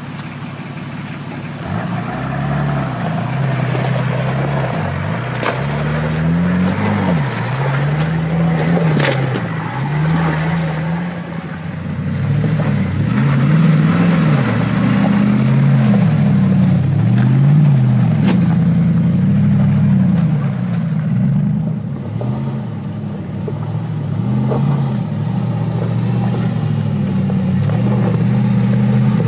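Off-road 4x4 engine revving up and down again and again, its pitch rising and falling every second or two as the throttle is worked on and off. There are two sharp knocks a few seconds apart.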